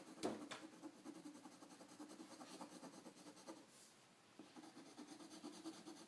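Pencil scratching faintly on paper as a drawing is coloured in.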